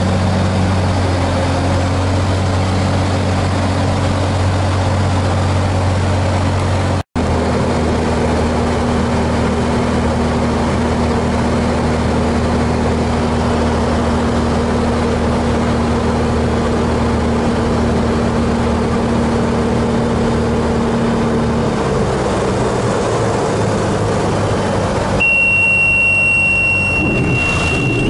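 Cirrus single-engine piston aircraft's engine and propeller droning steadily in the cockpit on final approach. A steady high warning tone, typical of the stall warning horn in the landing flare, sounds for about three seconds just before touchdown.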